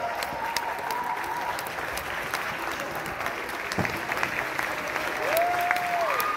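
Audience applauding, many hands clapping steadily, with a long held cheer from someone near the end.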